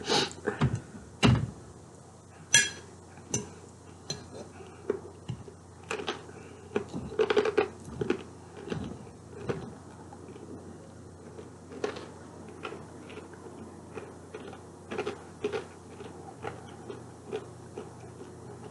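A metal fork clinking and scraping against a plate while eating, in irregular short clicks that are busiest in the first half.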